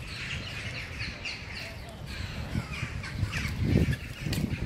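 Repeated short, harsh bird calls and chirps from birds at a carcass. A louder low rustle comes about four seconds in.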